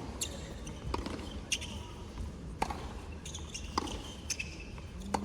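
Tennis ball knocking on a hard court or off a racket, four sharp strikes a second or more apart.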